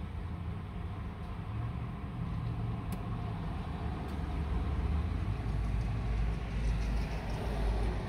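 Low engine rumble of a white Ram pickup truck with a utility service body driving up close, growing louder through the second half, heard from inside a car.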